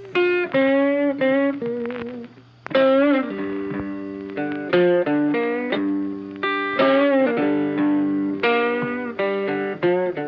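Background music: a guitar picking a melody of separate plucked notes, each ringing out and fading.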